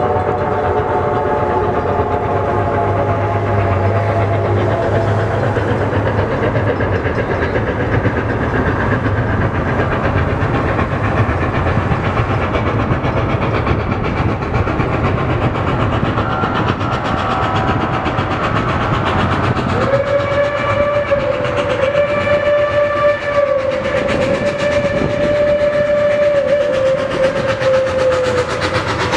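Reading T1 No. 2102, a 4-8-4 steam locomotive, running with its train, with wheels clacking over the rail joints. Its steam whistle is fading out over the first few seconds. A long whistle blast starts about two-thirds of the way through, breaks briefly, and stops just before the end.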